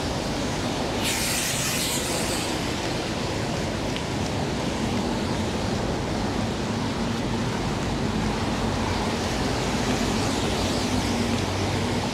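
Steady rushing noise of rain and traffic on a wet city street, with a brief higher hiss about a second in.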